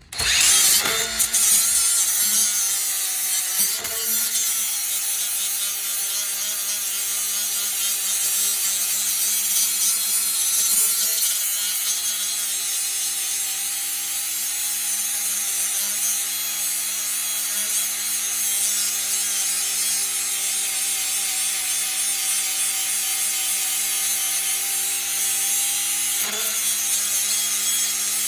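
Electric grinder starting up and grinding steadily on metal, removing material from a part so it fits. A steady motor whine sits under a loud hissing scrape, and the pitch shifts briefly about four seconds in and again near the end.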